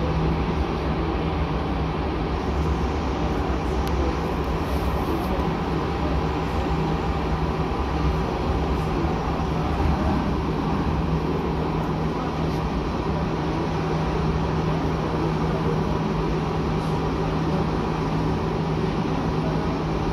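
Tram travelling along its track, heard from inside the driver's cab: a steady rumble of the running gear on the rails with a constant low hum underneath.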